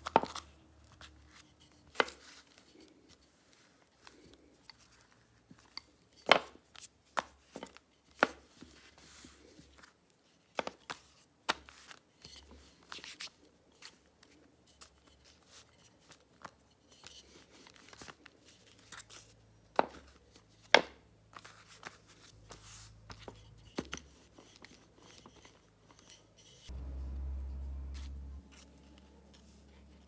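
Wooden rolling pin rolling over a slab of soft clay on a table, with hands pressing and patting it: irregular sharp knocks and taps, some a second or so apart and some several seconds apart, over soft rubbing. Near the end a low hum runs for under two seconds.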